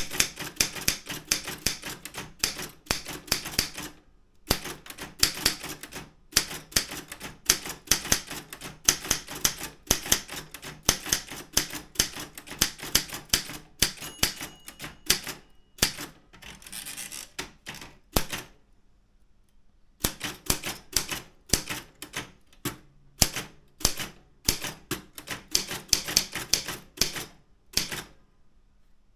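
Daro Optima M16 manual typewriter being typed on: runs of quick key strikes with brief pauses between words and lines, and a longer pause about two-thirds of the way through.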